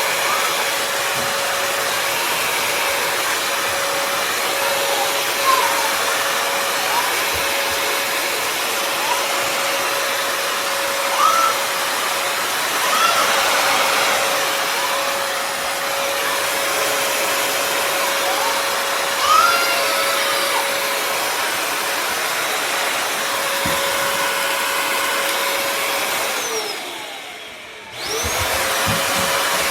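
Bissell CrossWave HydroSteam Pet wet-dry vacuum running: a steady whine over rushing air, with a few short squeaky chirps. Near the end it winds down, falling in pitch, then starts up again about a second later.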